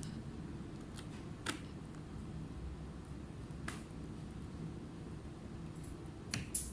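Several sharp, separate clicks and taps of laptop parts being handled and fitted during reassembly, the last two close together near the end, over a steady low hum.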